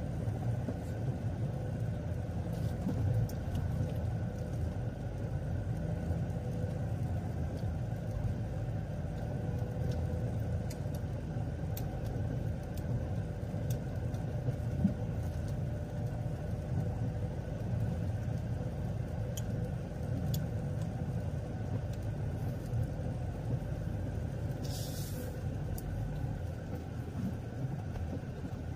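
Steady low rumble of a moving road vehicle, with a faint steady hum above it and a brief hiss about 25 seconds in.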